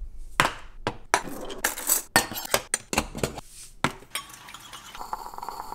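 Kitchen clatter on a granite countertop: a quick, irregular run of clinks, taps and knocks as a metal spoon, coffee can, sugar shaker and steel cup are picked up and set down. A short steady tone comes in near the end.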